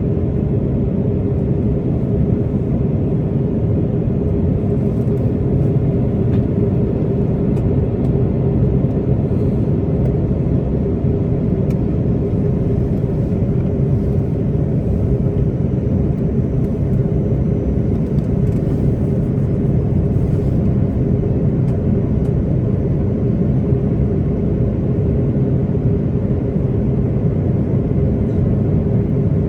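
Steady cabin drone of an Airbus A330-323 airliner on approach, heard inside the cabin from a rear economy window seat: engine and airflow noise with a steady hum running through it.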